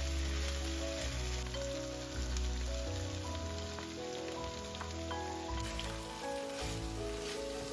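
Food sizzling as it fries in oil in a pan, a steady crackling hiss, with background music of held notes over it.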